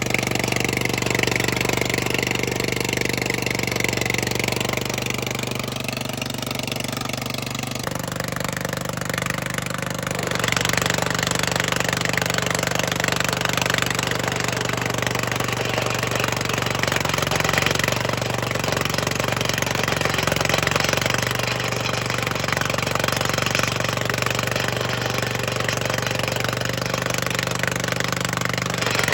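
Vermeer SC30TX stump grinder running steadily at speed. Its engine note shifts about eight seconds in, and a harsher, rougher noise joins a couple of seconds later.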